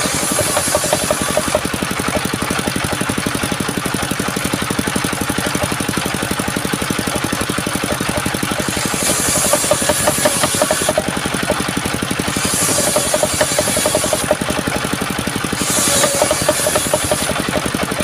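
Small engine driving a sawmill saw, running steadily, with a brighter high-pitched rush lasting a second or two that comes back about every three seconds in the second half.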